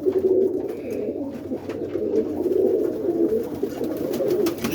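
Many roller pigeons cooing together in the loft, a continuous mass of overlapping low coos.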